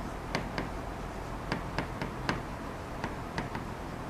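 A pen tip tapping and ticking on the glass of a smart board during handwriting: about eight light, irregular taps.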